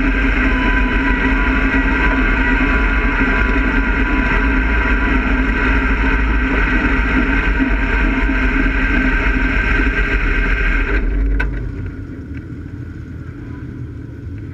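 Race car engine idling steadily, heard from inside the car, then switched off about eleven seconds in. A quieter low rumble carries on after it stops.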